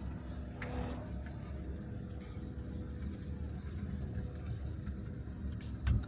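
Mercedes-Benz W202 C240's V6 engine idling steadily, started again after three years standing. A short low thump comes near the end.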